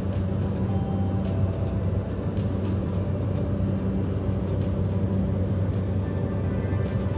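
Steady drone of a light aircraft's engine heard from inside the cabin, a constant low hum.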